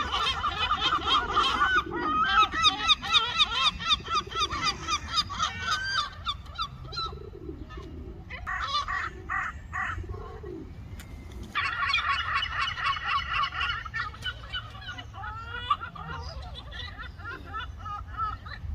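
A flock of gulls calling: many rapid, overlapping high cries, thinning out about a third of the way in to a few longer squawks, then building again before tapering off near the end. A steady low rumble runs underneath.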